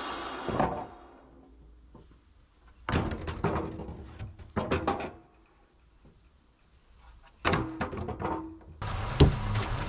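Wooden boards knocking and clattering against the steel track of a portable bandsaw sawmill as they are handled, in two bursts of thunks. A steady engine idle cuts off abruptly about half a second in. Near the end another engine idle comes in, with a single sharp loud thump.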